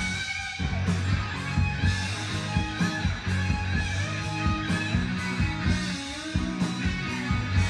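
Music with guitar and a steady beat and strong bass, played from a vinyl record on a turntable through a Nagaoka MP-110 moving-magnet cartridge.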